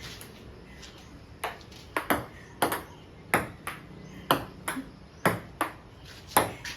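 Table tennis rally: the celluloid-type ball clicking sharply off the paddles and the table in turn, about two hits a second, beginning about a second and a half in.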